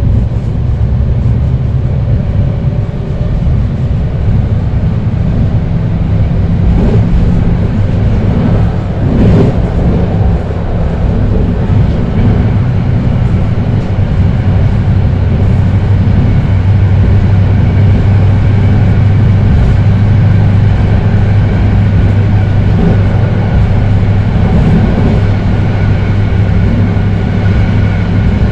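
BART legacy-fleet Rohr B2 rapid-transit car running, its Adtranz 1507C traction motors giving a steady low hum over the rumble of wheels on rail. A higher whine grows stronger about halfway through, and there is a single knock about nine seconds in.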